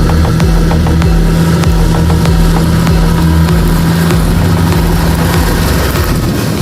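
Diesel engine of farm harvest machinery running steadily, a constant low hum, with a change in its note about five seconds in.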